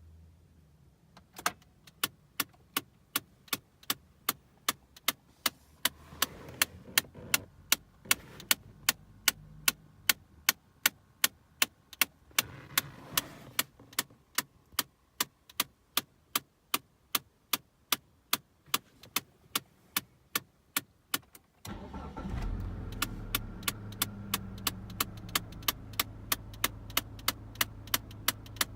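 Steady, fast clicking from a Mitsubishi Galant's heater/cooling flap actuator behind the dashboard, about three clicks a second, the sign of a broken flap actuator. About 22 seconds in, the car's engine starts and runs at idle with a low hum, and the clicking carries on over it.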